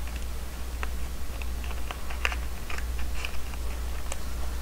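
Clear plastic parts bags crinkling and small metal rifle parts clicking as they are handled and set down on a workbench, in light, irregular clicks over a low, steady hum.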